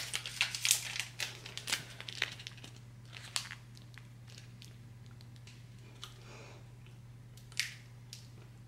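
The plastic wrapper of a Vega Sport protein bar crinkling and tearing as it is peeled open, dense for the first two seconds or so. After that come a few scattered crinkles and soft chewing as a bite of the bar is eaten.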